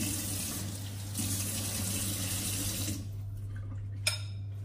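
Tap water running into a glass bowl for about three seconds, with a short dip about a second in, then stopping. A single sharp click comes near the end.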